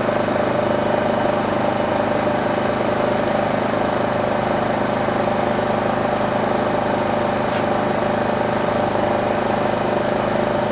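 Craftsman 3000i inverter generator's engine running at a steady speed with economy mode off, under a light load. Two faint ticks about a second apart come late on.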